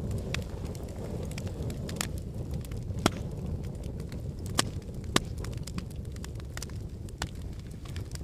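Wood fire burning in a fireplace: a steady low rumble with frequent sharp crackles and pops, a few of them loud, about three seconds in and twice around five seconds.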